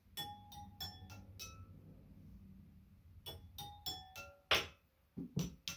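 Water-tuned wine glasses struck one after another with a thin stick, in two quick runs of about five strikes each. Every strike leaves a short bright ring at its own pitch, lower for the fuller glasses and higher for the nearly empty ones.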